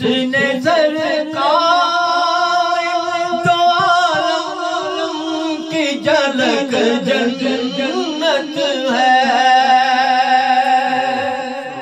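A man singing a devotional Urdu naat, holding two long notes, one starting about a second in and another about nine seconds in, with wavering melodic ornaments between them.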